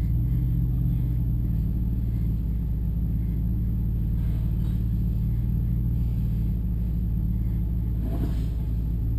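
A Jeep Wrangler JK's 3.8-litre V6 idling steadily, heard from inside the cab.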